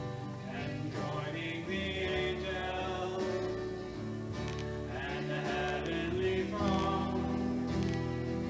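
Live church worship band playing a slow song: acoustic and electric guitars over a drum kit, with voices singing the melody.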